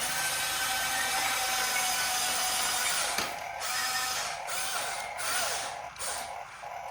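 Model RC excavator's small electric motors and gears whining with a hiss, the pitch shifting slightly as it works; the whine stops and restarts briefly several times in the second half.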